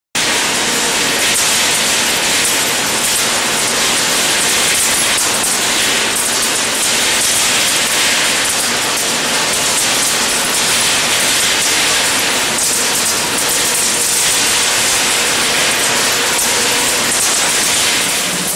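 Machinery of an X-ray ore and scrap sorting line running: a loud, steady mechanical clatter and hiss, thick with small rattles. It starts abruptly and keeps an even level.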